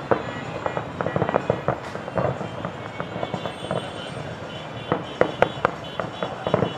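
Aerial fireworks display: a rapid, irregular barrage of bangs and crackling pops from bursting shells, with a few louder bangs about five seconds in.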